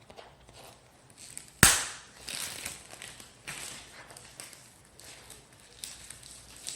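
Cellophane wrapper of a cigarette pack being pulled off and crinkled by hand. There is one sharp crack about a second and a half in, then irregular crackling.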